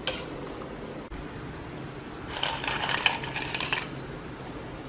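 Hard crab pieces clicking and clattering against a plate as they are tipped into a pot of soup: one click just after the start, then a quick run of small clatters for about a second and a half in the middle.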